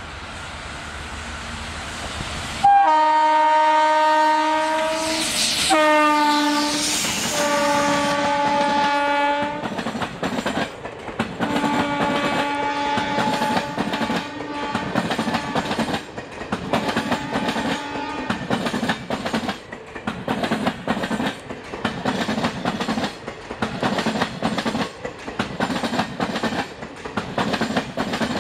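A WAP4E electric locomotive's horn sounding several blasts as a warning at a level crossing; the first blast is the loudest, and later ones are fainter. The passing train's wheels then clatter in an even rhythm over the rail joints.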